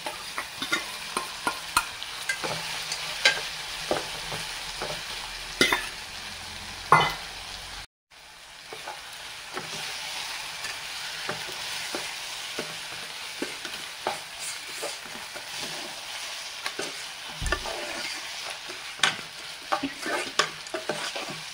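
Crushed crab sautéing in hot oil with crushed tomato and spices in a pan, sizzling steadily while it is stirred, with frequent sharp clicks and scrapes against the pan. The sound drops out for a moment about eight seconds in.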